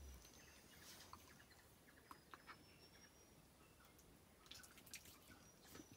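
Near silence: quiet tent ambience with a few faint small clicks and two faint, thin high whistles, the second one longer.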